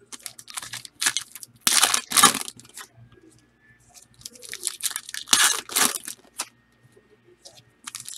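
Trading card pack wrappers being torn open and crinkled by hand, in crackling bouts that are loudest about two seconds in and again around five seconds in.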